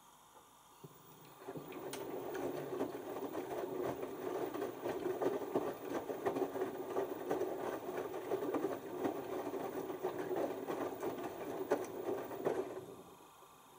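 LG TurboWash 6 Motion front-loading washing machine during its first rinse. Its direct-drive motor turns the drum for about eleven seconds while wet laundry tumbles in the rinse water, then the drum stops. A small click comes just before the drum starts.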